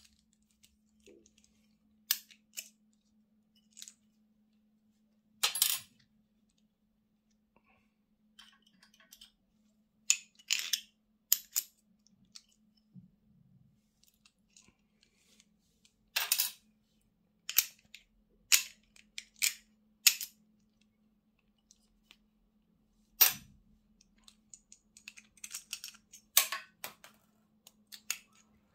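Metal parts of a Shimano Alfine 11 internal gear hub clicking and clinking as they are handled and picked apart with a small tool: scattered, irregular sharp ticks, more frequent near the end.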